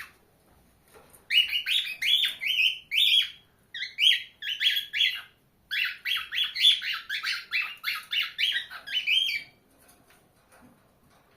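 Cockatiel singing: rapid strings of short whistled chirps in two long phrases with a brief pause between them, then it stops a couple of seconds before the end.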